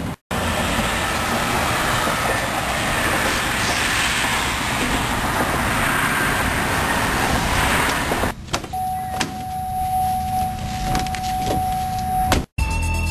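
Outdoor car and traffic noise, a steady rushing haze, at a gas station pump. After a cut comes a steady electronic beep for about four seconds, with a few clicks, by a car with its door open.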